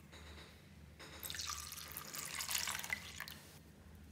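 Water poured into a glass baking dish that already holds water, splashing and bubbling; it starts suddenly about a second in and stops near the end.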